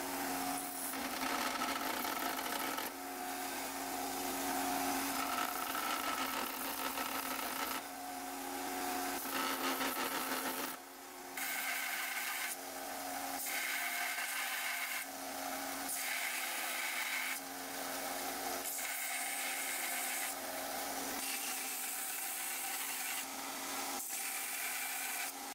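Scheppach narrow-belt sander running, its abrasive belt grinding the steel handle and bolsters of a knife. The grinding rises and falls as the steel is pressed on and eased off, with a brief dip about eleven seconds in.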